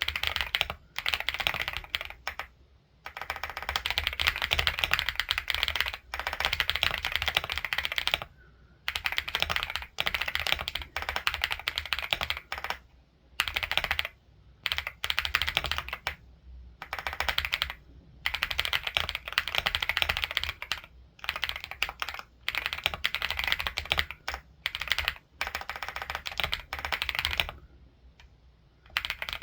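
Computer keyboard being typed on quickly in long, continuous runs of key clicks, broken by short pauses every few seconds.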